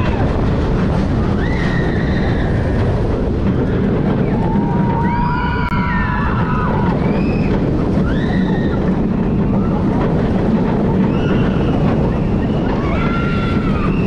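Steady wind rush and rumble of a launched steel roller coaster in full run, with riders screaming and yelling in short rising-and-falling shouts several times, one scream held about five seconds in.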